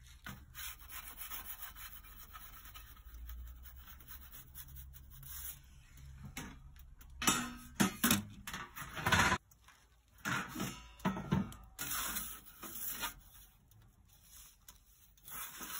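Pizza peel scraping and knocking on the oven's baking stone as the pizza is turned in a wood-fired oven, in irregular short scrapes that start about six seconds in, over a faint low background.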